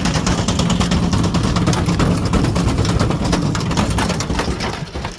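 Ariston Margherita washing machine running a spin with a brick in the drum: a steady motor hum under a fast, continuous clatter of knocks. The sound winds down and grows quieter near the end as the drum slows.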